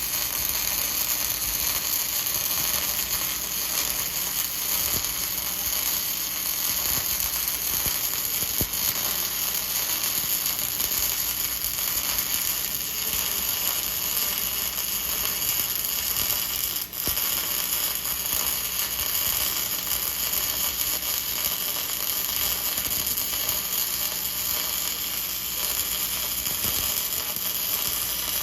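MIG welder's arc crackling steadily as a bead is laid, with a brief break in the arc about seventeen seconds in.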